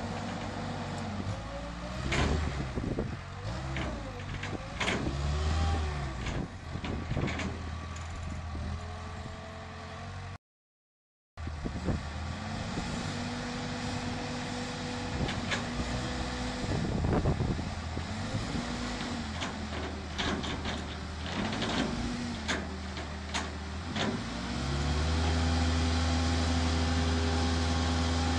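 Telescopic handler's diesel engine running while its hydraulics whine up and down as the raised boom pushes a large square straw bale onto a high stack, with scattered knocks and scrapes. The sound drops out for about a second a third of the way in, and near the end the engine revs up and holds a louder, steady note.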